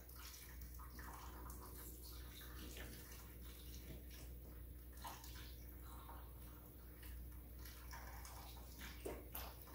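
Hands being washed under the foot-pumped faucet of a portable sink: water splashing faintly and unevenly into the plastic basin as the hands scrub.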